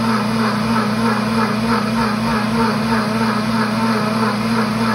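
Pampered Chef cooking blender running its heated self-clean cycle, the motor spinning the blades through soapy water. A steady motor hum with an even pulsing churn about three times a second.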